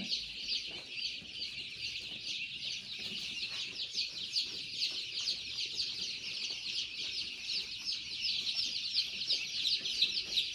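A large crowd of young turkey poults and kadaknath chicks peeping without pause. Many short, high, falling peeps overlap into one continuous chorus.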